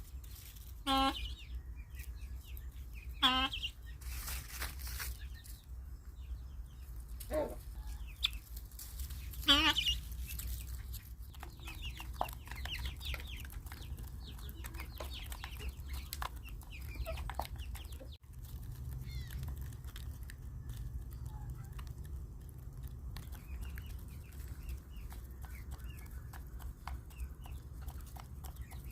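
Guinea fowl calling: four loud, short, harsh cries in the first ten seconds, then fainter chirping calls, over a steady low rumble. A brief noisy burst comes about four seconds in.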